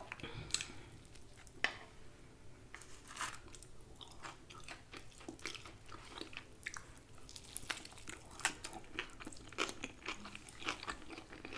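A person chewing crunchy fried chicken, with a steady run of small crisp crunches and wet mouth sounds.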